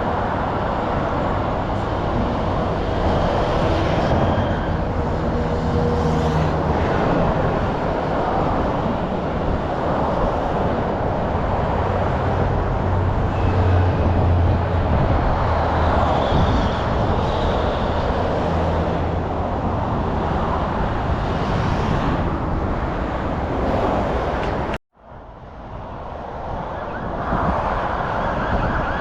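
Road traffic: a steady rumble of car engines and tyres. The sound cuts out abruptly about 25 seconds in and fades back up over the next few seconds.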